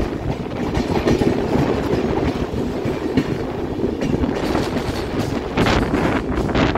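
Express train running at speed on the rails, heard from on board, its wheels clattering over the rail joints, with sharper clacks in the second half.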